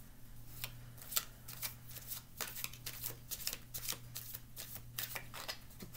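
Tarot deck being shuffled by hand: a continuous run of quick, irregular card clicks and flicks.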